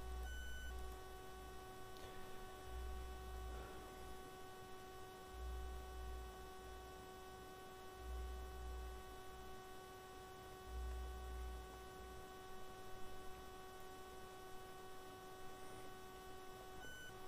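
Steady electrical hum: a constant high tone with overtones, under a soft low rumble that swells about every two and a half seconds.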